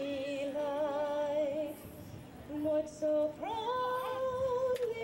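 A woman singing slowly, with long held notes and vibrato, over a ballpark's loudspeakers. A short lull comes about two seconds in, and near the middle she rises into a long held note.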